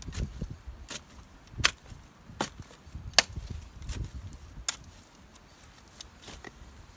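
Axe chopping wood: a run of sharp, uneven strikes, about one every three-quarters of a second.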